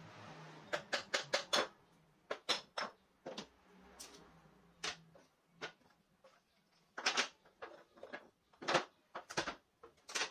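Wooden clamp parts knocking and clattering as a homemade wooden bar clamp is taken apart: dowel pins pulled from the holes of the wooden bars and the pieces set down on the bench. A quick run of sharp taps comes about a second in, with more clusters of knocks later on.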